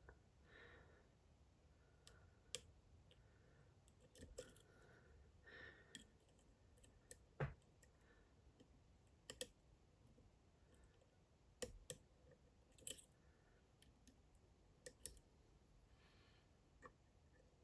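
Faint, irregular clicks of a lock pick tapping and catching on the pins inside a DOM IX Saturn dimple lock, about a dozen scattered a second or two apart. The lock is held under tension in a false set while the picker probes for the last unset pin.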